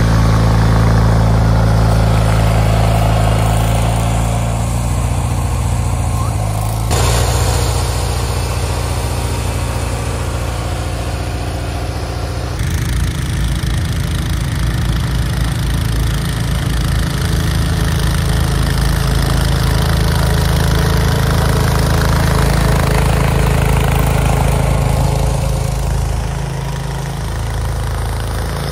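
Garden tractor engine running steadily, its note shifting abruptly twice, about seven and about twelve seconds in.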